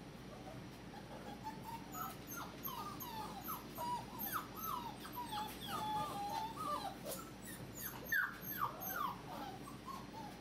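Forty-day-old puppies whining and squealing at their mother: many short, high cries in quick succession, some sliding up or down in pitch, loudest about eight seconds in.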